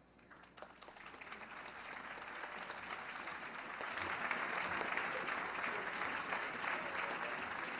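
Large crowd applauding. The applause grows over the first few seconds and then holds steady.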